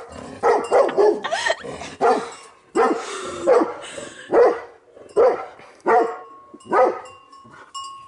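German Shorthaired Pointer barking repeatedly at cattle as it chases them, about one or two sharp barks each second.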